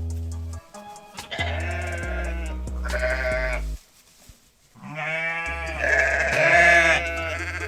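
Two long animal calls with a wavering pitch, over background music with steady low bass notes. The second call, about five seconds in, is the louder one.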